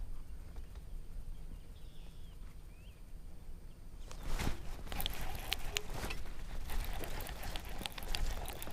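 Outdoor ambience on the water: a steady low rumble, a faint bird chirp or two a couple of seconds in, then scattered light clicks and knocks from about halfway.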